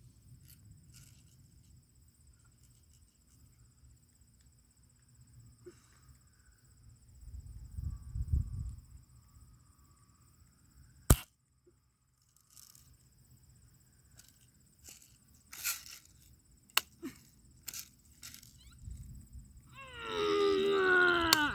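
A single sharp crack of a BB gun firing about halfway through, followed by a few softer clicks, over steady chirring of crickets. Near the end a short wavering, pitch-sliding sound rises above the background.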